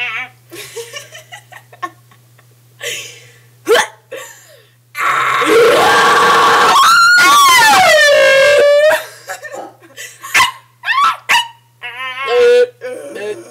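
A person making weird, high-pitched vocal noises: short squeaks and glides, then one long loud noise of about four seconds whose pitch falls and settles, and more short squeaky noises after it.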